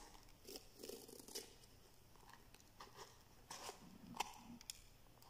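Faint crinkling and rustling of the paper stuffing inside a new sneaker as it is handled and pulled at, in scattered soft crackles.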